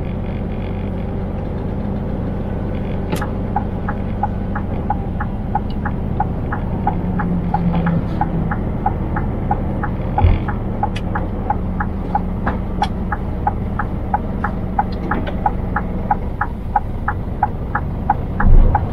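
Scania truck engine running steadily in the cab, with the turn-signal indicator ticking about two or three times a second from about three seconds in. A couple of loud low thumps near the end.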